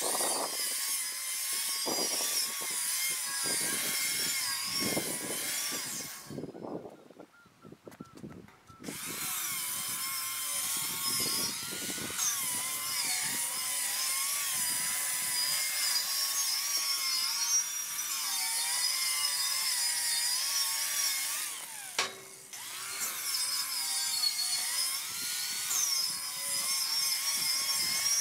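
Electric angle grinder working along a rusty steel beam, its motor whine wavering as it bears on the metal. It stops for about two seconds roughly a quarter of the way in and dips briefly about three quarters of the way through.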